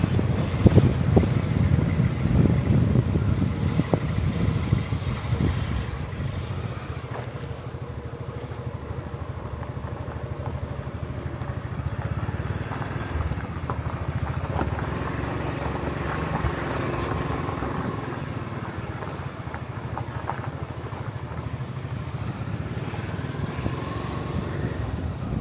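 Small motorbike engine running steadily while riding, louder in the first few seconds and then settling lower.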